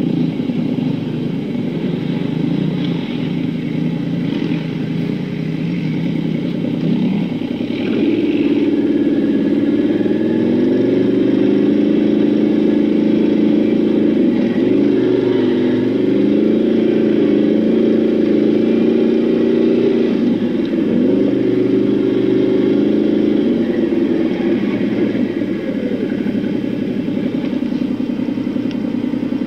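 Can-Am 800R ATV's V-twin engine running under way, heard from the rider's seat, its pitch rising and falling with the throttle. About eight seconds in it gets louder and higher as the rider accelerates.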